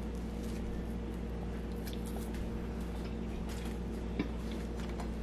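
Quiet kitchen room tone: a steady low hum with faint soft clicks and handling noises, and one slightly sharper tick about four seconds in.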